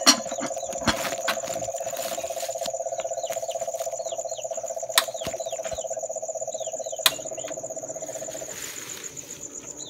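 Night insects, crickets, chirping in a steady high trill. A few short falling chirps come now and then. Under them a lower steady pulsing buzz stops shortly before the end, and a few sharp clicks stand out.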